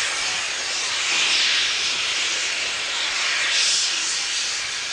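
Steam locomotive venting steam from its open cylinder drain cocks as it moves off slowly: a loud, steady hiss that swells about a second in and again near the end.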